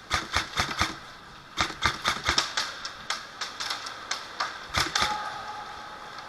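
Airsoft guns firing: sharp, dry clacks in uneven clusters of several a second, stopping about five seconds in.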